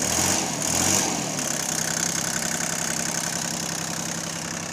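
Bombardier MPV-20's three-cylinder diesel engine revving briefly as the hand throttle is moved, then settling to a steady idle about a second and a half in.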